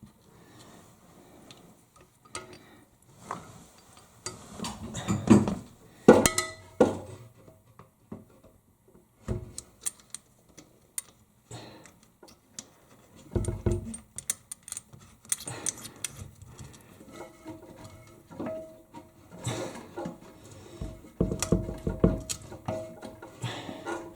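Metal nuts and washers clinking and scraping against porcelain as they are fitted by hand onto a toilet's floor bolts. There are scattered irregular clicks and a few louder knocks.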